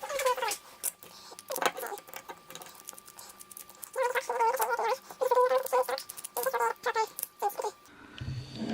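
Metal clicks and short, repeated squeaks from a Kryptonite padlock and hand tools being worked.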